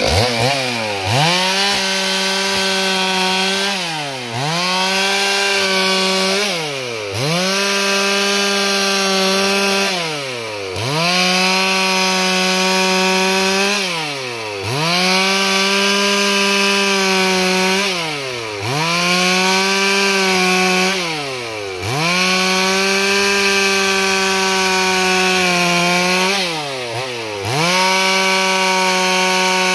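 Stihl MS 382 two-stroke chainsaw ripping lengthwise through a thick wooden plank at full throttle. The revs hold steady for three to four seconds, then drop briefly and climb back, about seven times over.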